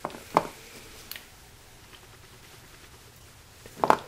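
A few short knocks and handling sounds from a new car starter motor being picked up and turned over by a gloved hand on a concrete floor: one knock about half a second in, and a quick cluster of two or three near the end.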